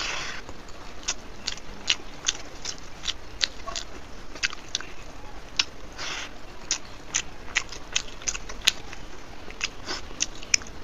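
Close-up chewing of a soft mouthful of dal and rice: wet, sticky mouth clicks at an irregular pace, with a couple of brief smacking sounds.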